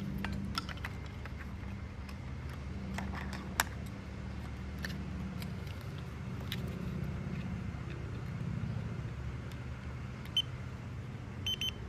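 Scattered handling clicks and rattles over a steady low hum, then a few short high beeps near the end as a LiPo battery checker is connected to the battery.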